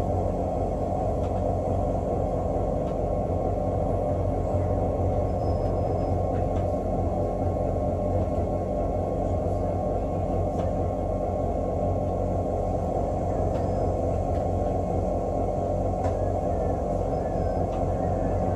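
Cabin noise inside a British Rail Class 365 electric multiple unit on the move: a steady rumble of wheels on rail with a constant electrical hum. A few faint ticks come through on top.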